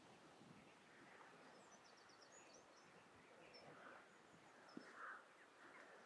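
Near silence with faint, distant birdsong: scattered short high chirps and a brief trill over a low outdoor hush, with a small tap a little before five seconds in.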